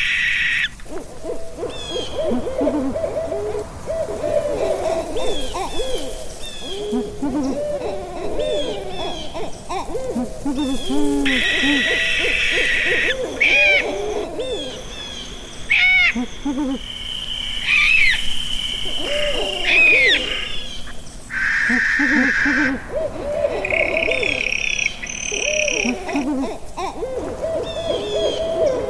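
Owls hooting, many low calls overlapping throughout, with louder higher-pitched calls of a second or two breaking in several times.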